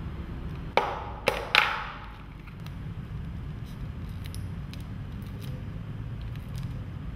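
Clear plastic wrap crinkling as it is handled, with three sharp crackles in the first two seconds, followed by small ticks and rustles as scissors cut the plastic.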